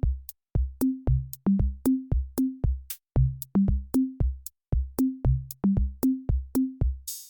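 Electronic background music: a drum-machine beat with short deep bass notes and sharp clicks, about two beats a second, dropping out briefly a few times.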